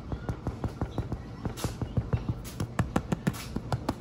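Fingers tapping rapidly on the top crust of a freshly baked homemade white sandwich loaf, about five or six light hollow taps a second. The hollow sound shows the bread is cooked all the way through.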